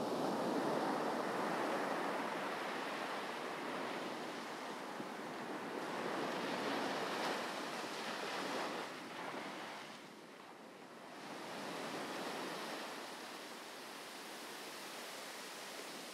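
Sea waves washing in and out in slow swells, with a lull about ten seconds in.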